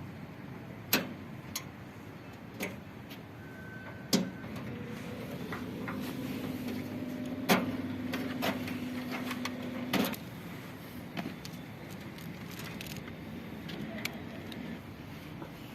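Scattered sharp knocks and clicks of work on a washing machine being taken apart, about seven in all, with a steady low hum from about four seconds in until about ten seconds in.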